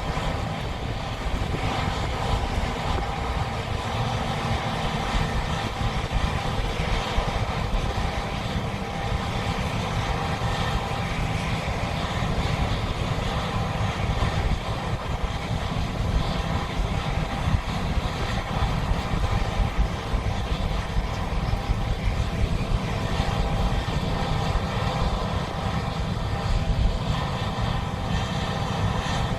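John Deere combine harvesters running steadily in a soybean field, a constant mechanical drone with a heavy low rumble.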